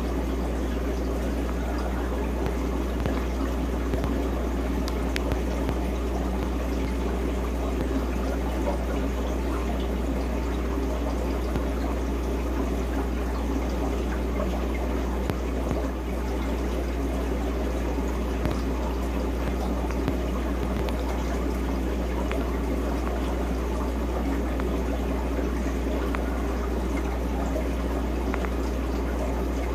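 Aquarium running with a steady trickle of water over a constant low hum, with a few faint ticks.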